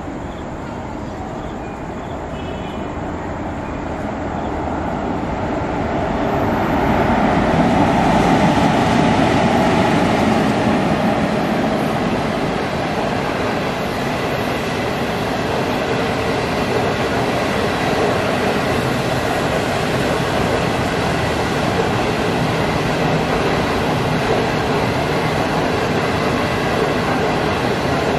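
SS9G electric locomotive hauling a passenger train past. It grows louder as it approaches, peaks about eight seconds in, then gives way to the steady rolling noise of the coaches' wheels on the rails.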